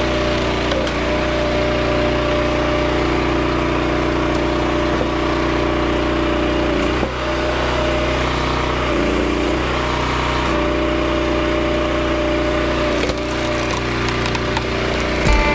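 Log splitter's gas engine running steadily under hydraulic load while logs crack and split on the wedge. The engine note dips briefly about seven seconds in.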